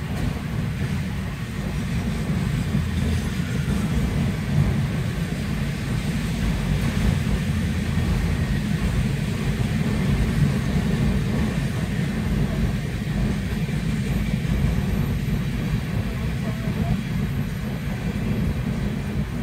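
Freight train's autorack cars rolling past a grade crossing: a steady low rumble, heard from inside a stopped car.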